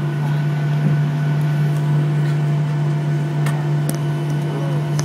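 Cabin noise of a Boeing 737-800 taxiing: the steady drone of its CFM56-7B jet engines at idle, with a strong low hum and several fainter steady tones. A couple of faint ticks come about three and a half seconds in.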